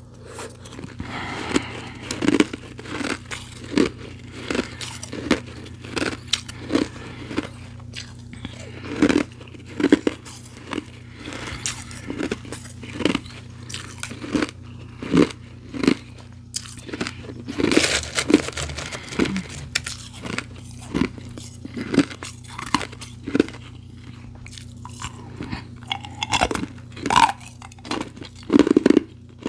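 Close-miked chewing and crunching of soft, refrozen powdery ice, in short bites about one or two a second. A louder crunch comes about two-thirds of the way through.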